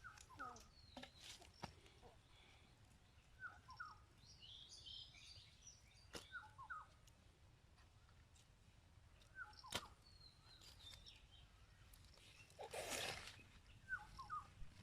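Faint birds calling outdoors: short two- or three-note chirps repeating every few seconds, with a brief flurry of higher chirps about five seconds in. A brief rush of noise comes near the end.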